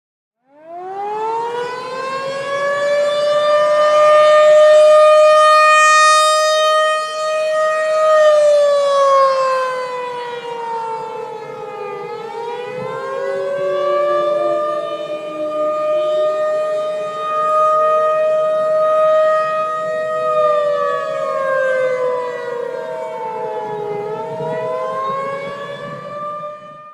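Outdoor tornado warning siren winding up from a low pitch to a steady wail, then falling and rising again in slow cycles, with two tones sounding slightly apart in pitch. It cuts off abruptly at the end.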